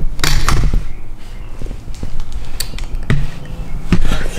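Scattered light taps and knocks with rustling, the handling noise of a handheld camera moved around a car's front end, with louder knocks about three and four seconds in over a steady low hum.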